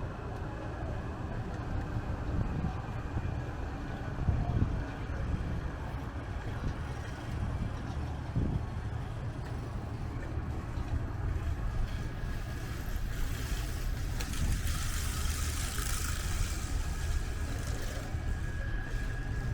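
Street ambience on a wet, windy day: a steady low rumble of wind and traffic. About two thirds of the way in, a vehicle hisses past on the wet road, swelling and fading.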